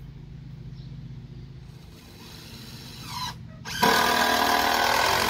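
A power tool, most like a drill, whirring: a short partial run just past the middle, then it spins up with a rising pitch and runs loud and steady for about a second and a half before cutting off near the end. A steady low hum sits under it.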